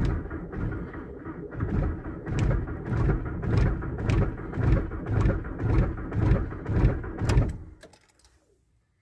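Starter slowly cranking a frozen Volkswagen TDI diesel, the engine turning over in heavy, even beats about twice a second without firing. The cranking stops suddenly about eight seconds in, and the engine has not started.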